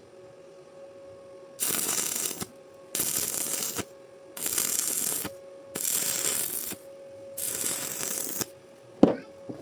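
Arc welding on steel rebar: the arc crackles in five short bursts of about a second each, as in a string of short welds. A faint steady hum runs underneath, and a sharp click comes near the end.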